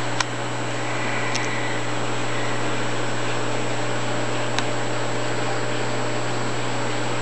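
Steady hiss and low hum of a reef aquarium's running equipment, its pumps and circulating water, with a faint click just after the start and another about four and a half seconds in.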